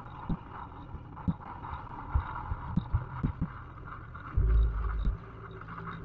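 Wind buffeting the microphone of a camera on the bow of a boat under way, in irregular low thumps over a steady rush of wind and water, with one longer, stronger gust about four and a half seconds in.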